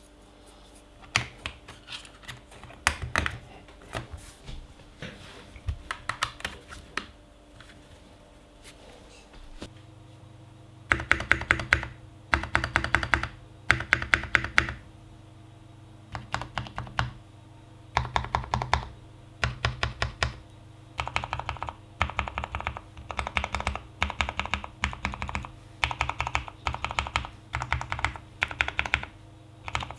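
Typing on a custom mechanical keyboard with lubed Cherry MX Brown switches and PBT XDA keycaps, in a foam-dampened case. Light, scattered keystrokes at first, then fast bursts of typing from about a third of the way in.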